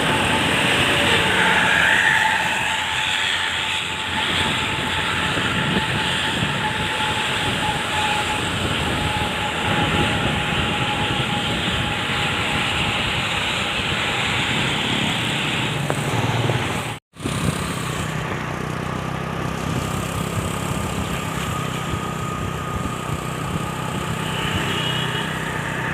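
Heavy vehicle on the move: steady engine and road noise. The sound drops out for an instant about 17 seconds in.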